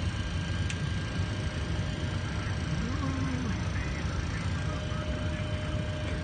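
Steady low rumble on an airliner's flight deck while the aircraft rolls on the ground, with a thin steady whine over it.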